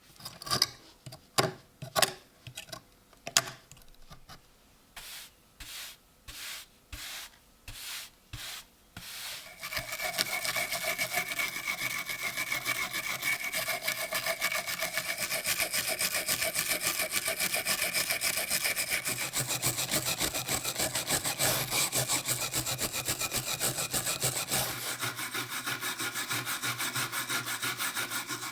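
Hand-tool work on an old rusty knife: first a run of separate sharp strokes, then from about ten seconds in a dense, steady scraping or sawing that runs on.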